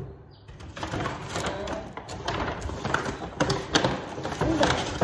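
Grocery packaging being handled: irregular rustling and crinkling with light knocks as items are taken out and shown.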